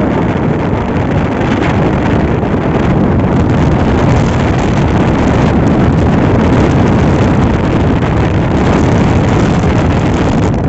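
Loud, steady rushing noise of wind buffeting the microphone, strongest in the low end.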